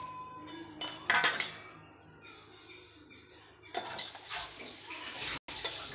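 Steel kitchen bowls and utensils clinking and scraping in two bouts, a short one about a second in and a longer one from about four seconds in.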